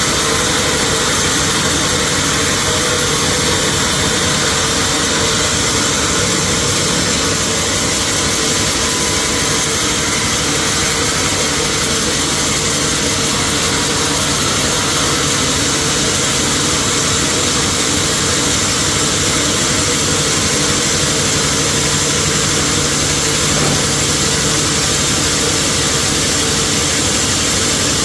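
Sawmill machinery running with a steady, loud mechanical drone and a high whine, with no change in pitch or level throughout.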